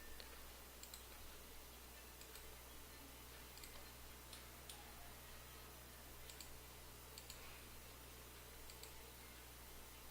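Faint, irregular clicking of a computer mouse, about a dozen clicks spread unevenly, over a steady low hum.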